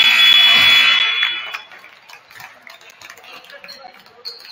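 Gymnasium scoreboard buzzer sounding a loud steady multi-tone blare that cuts off about a second in. After it come scattered knocks and thumps of play on the hardwood and a few short high squeaks near the end.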